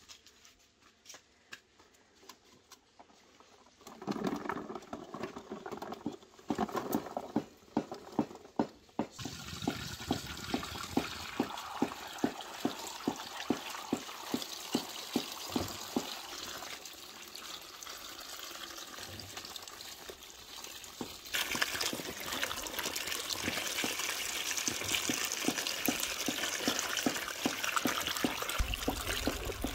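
Water running from a clay spout into a clay basin full of bell peppers as they are rinsed and rubbed by hand, with many quick splashes and taps. It starts a few seconds in and grows louder about two-thirds of the way through.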